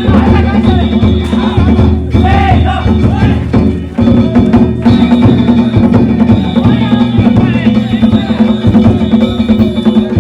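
Danjiri float music (narimono): a taiko drum beaten continuously together with clanging metal gongs, loud, with shouting voices mixed in.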